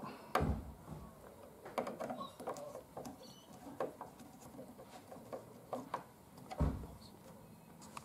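Hand screwdriver turning screws into a deadbolt's faceplate in wood: small irregular clicks and scrapes of the blade in the screw heads, with two dull knocks, one about half a second in and one near the end.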